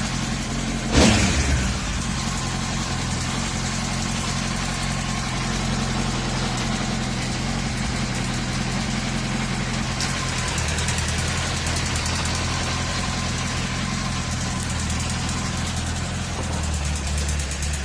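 Honda CBR1000RR 2004 inline-four engine running steadily at low revs, carrying a noise that appears when hot below 3000 rpm, which the owner suspects could come from the exhaust manifold gasket, the valves or a connecting rod. A sharp knock about a second in.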